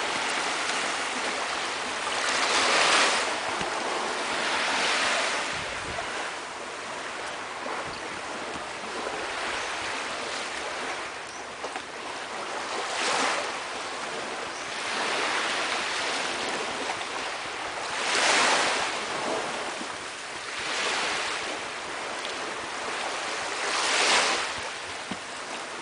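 Small sea waves washing onto a sandy shore: a steady hiss of surf, swelling every few seconds as each wave breaks and runs up the beach.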